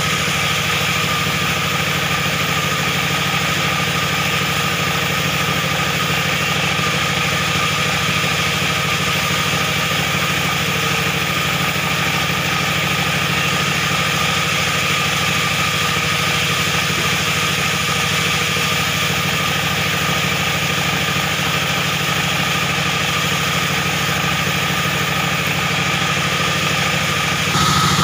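A 24 hp diesel engine running steadily, driving a sawmill band saw as it cuts through a wood slab.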